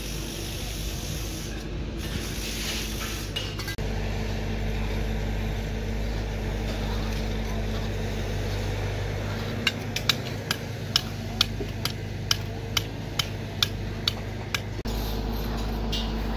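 Construction site with a steady low hum and scraping; partway through, a hammer strikes steel rebar in a row of sharp metallic knocks, about two a second for some five seconds.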